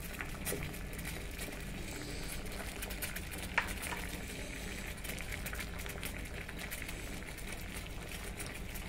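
Water at a rolling boil in a small stainless steel pot on a gas burner: a steady bubbling with small pops, and one sharper click about three and a half seconds in.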